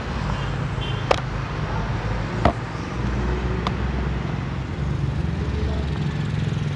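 Three sharp plastic clicks, a little over a second apart, as the two halves of a Bosch drill's plastic housing are pressed together to close the cover, over a steady low background rumble.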